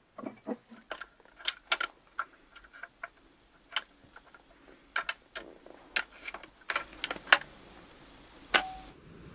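Bolt-action rifle being handled: a string of irregular metallic clicks and clacks as the bolt and cartridges are worked, with one sharper click near the end that rings briefly.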